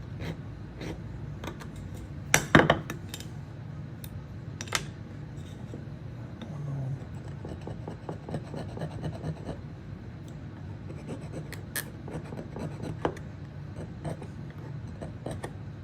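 A piece of aluminum scraped along a flat file's teeth to push out metal clogged in them, with scratching and scattered metallic clicks and clinks over a low steady hum. The loudest clatter comes about two and a half seconds in.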